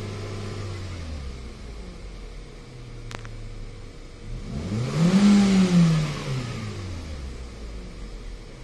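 2016 Hyundai Accent's four-cylinder engine idling with the air conditioning on, then revved once about five seconds in, pitch rising and falling back to idle. It runs smoothly, the intermittent misfire not showing. A single sharp click about three seconds in.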